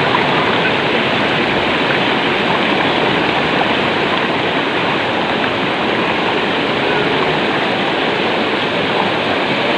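Waterfall and river water rushing in a steady, unbroken wash of noise.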